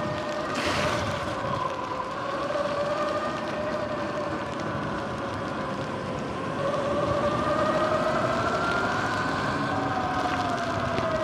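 Sur-Ron electric dirt bike's motor whining, its pitch rising and falling with speed, over tyre hiss on wet pavement. A short burst of hiss about a second in.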